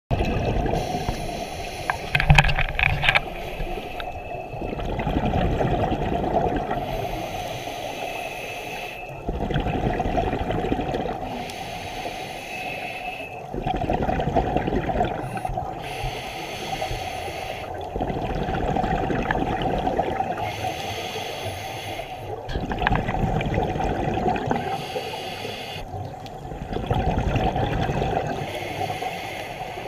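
Scuba diver breathing through a regulator underwater: a rush of exhaled bubbles about every four seconds, with quieter inhalations in between.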